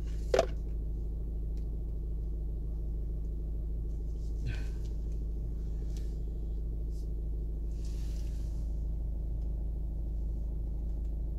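Steady low hum inside a stationary car's cabin. A single short, sharp sound with a brief falling tone comes about half a second in, and a fainter short sound falls near the middle.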